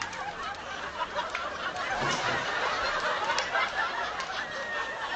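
Soft, muffled chuckling and indistinct voices, quieter than speech.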